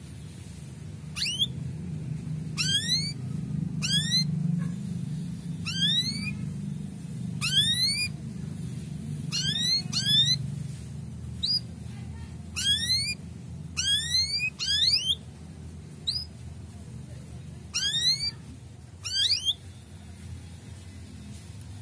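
Male canary calling 'cuit cuit': short, sharply rising whistled chirps, one at a time or in quick pairs, about one a second, falling silent near the end. A low hum runs beneath the calls.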